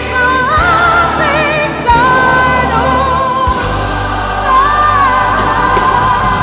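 Live pop-oratorio music: a female lead singer holds long notes with vibrato over a large choir and a band with orchestra. There are a few low beats in the first half.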